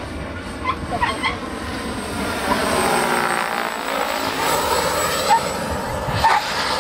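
Radio-controlled scale model helicopter flying past overhead, its rotor and engine noise swelling as it comes closest about three to four seconds in, with the pitch shifting as it passes, then falling away.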